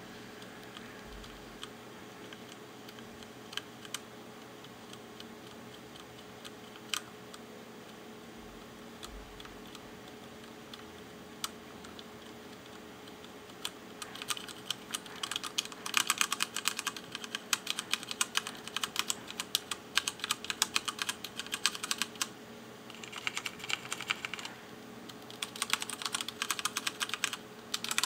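Mechanical keyboard with Cherry MX switches being typed on: scattered single keystrokes for roughly the first half, then fast, continuous typing with a couple of short pauses.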